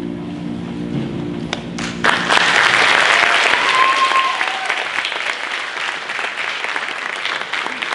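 The last held notes of the scene's music die away, then a theatre audience breaks into loud applause about two seconds in, with a brief high call from the crowd in the middle of it.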